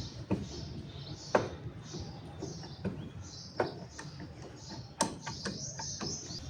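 Birds chirping repeatedly, with a few sharp knocks scattered through, the loudest about a second and a half in and at five seconds.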